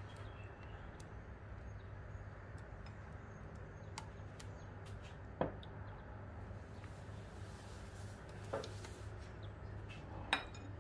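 A utensil knocks and clicks against the dish while the spinach sauce is spread over the bottom, with a few sharp taps spread out over several seconds. A steady low hum runs underneath.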